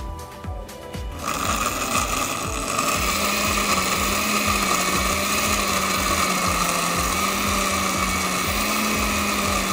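Countertop blender motor switching on about a second in and running steadily at one speed, chopping chunks of pepper, onion and tomato in vinegar down to a smooth purée.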